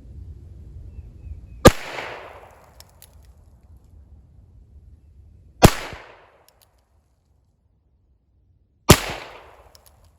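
Three single shots from a Heritage Rough Rider .22 rimfire revolver, about four and then three seconds apart. Each is a sharp crack with a short echoing tail.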